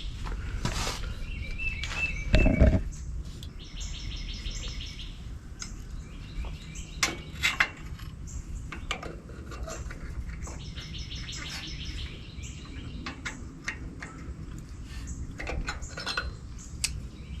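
Scattered light metal clinks and taps, as of hand tools on steel, over a steady low hum, with birds chirping in quick trills several times.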